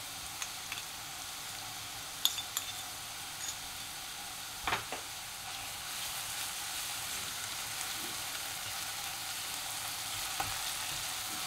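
Onion, garlic and ginger pastes sizzling steadily in hot oil in a non-stick pan, with a few light clinks of a spoon on a small steel bowl as green chilli paste goes in and a single knock a little before halfway. From about six seconds in, a silicone spatula stirs and scrapes the frying paste around the pan.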